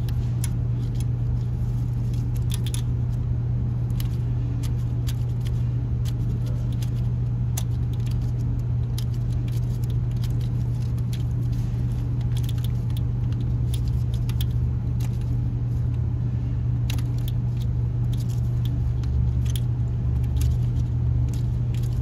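Scattered, irregular metallic clicks and clinks of hand tools and parts on the rocker arms of a 5.3L V8's valvetrain, over a steady low hum.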